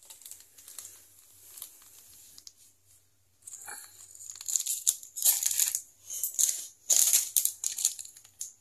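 A hand mixing flour and batter in a steel bowl: irregular rustling, scraping strokes, soft at first and louder and busier from about three and a half seconds in.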